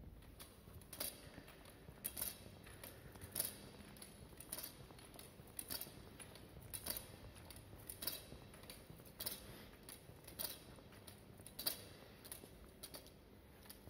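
Faint footsteps on a bare concrete floor, a sharp step about once a second.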